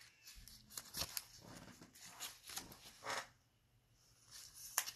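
Soft, irregular rustling and brushing of trading cards being handled and slid one past another, in short strokes with a pause a little after three seconds in.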